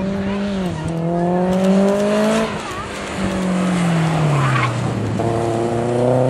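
A competing sedan's engine under hard acceleration: the revs climb, drop suddenly at a gear change just under a second in, and climb again. About halfway through it comes off the throttle and the revs fall away for about two seconds, then rise again near the end.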